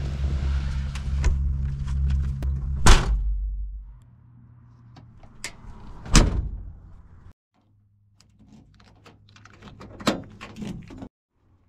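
Car engine idling with a steady low hum that stops about four seconds in. A door latch clunks open about three seconds in, and the door is slammed shut about six seconds in. Near the end a key clicks in the door lock as the door is locked.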